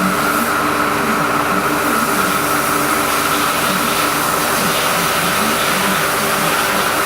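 Haas EC-400PP CNC horizontal machining centre running: a steady mechanical hum with a constant high whine.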